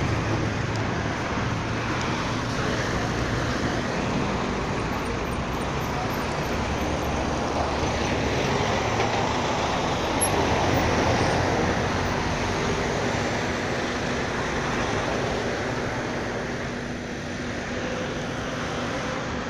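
GAZelle Next minibus driving along, a steady mix of engine and road noise.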